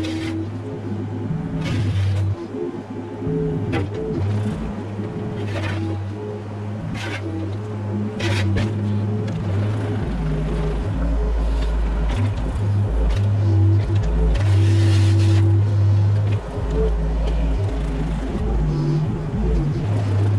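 Mini excavator's diesel engine running, its pitch and load shifting as the hydraulics work, with the bucket knocking and scraping several times.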